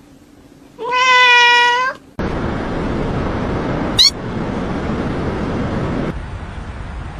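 A cat's single loud, drawn-out meow lasting about a second. After it comes a steady noisy hiss with one brief high squeak partway through.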